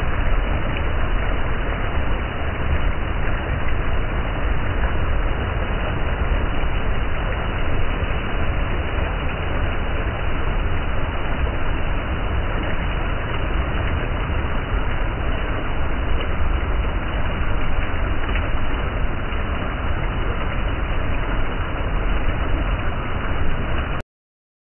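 Rushing mountain stream pouring over and between boulders, a steady roar of white water with a deep rumble, cutting off abruptly near the end.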